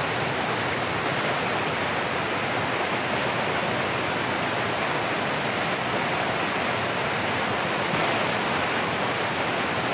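Mountain stream cascading over boulders in small waterfalls: a steady, even rush of white water.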